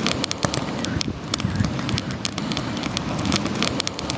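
Campfire crackling: many irregular sharp pops over a steady low rumble.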